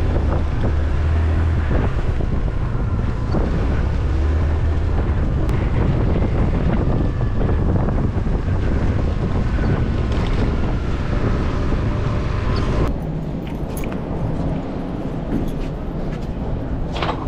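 Motor scooter engine running with wind rushing over the helmet-mounted microphone while riding through city traffic. About 13 seconds in the rumble cuts off abruptly to quieter street noise.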